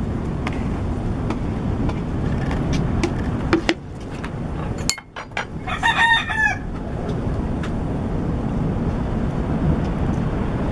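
A rooster crows once, about six seconds in, over a steady low rumble. Light clicks of a spoon against a plate and glass dish come and go.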